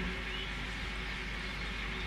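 Steady background hiss of ambience with no distinct events, and a faint short chirp about half a second in.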